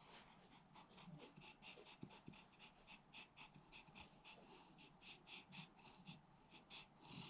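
Faint, quick breathing of a sleeping French bulldog: short breaths repeating about three to four times a second.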